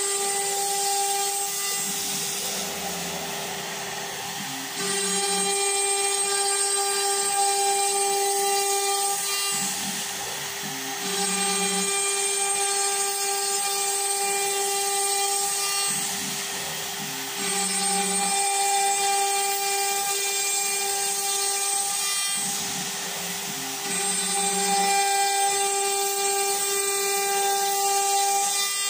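Homemade CNC router milling plywood with a 5 mm end mill, its spindle at 2400 rpm giving a steady whine. The cutting noise swells four times as each pocket is cut, about every six seconds, and eases in between.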